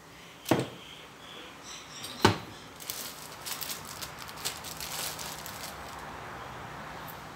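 Two sharp knocks of kitchenware, a little under two seconds apart, then a couple of seconds of light clicking and crackling over a faint steady hum.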